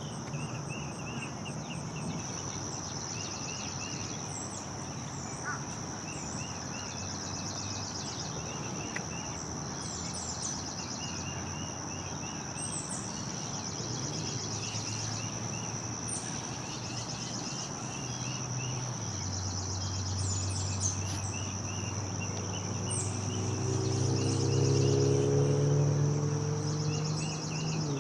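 Outdoor summer ambience: a steady, pulsing high-pitched insect chorus with songbirds calling in short repeated notes. Through the second half a low engine drone builds up and grows louder, becoming the loudest sound near the end.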